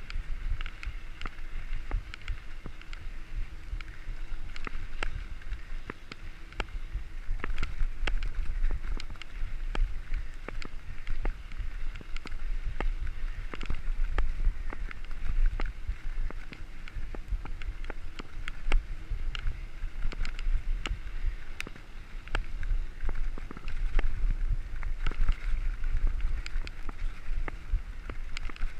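Mountain bike ridden fast over a packed-dirt forest trail: a steady rumble of tyres and wind buffeting the microphone, with frequent short rattling clicks from the bike jolting over bumps.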